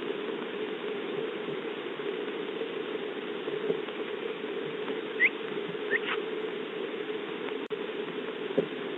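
Steady patter of rain, heard through a Ring security camera's narrow-band microphone, with two short rising bird chirps about five and six seconds in.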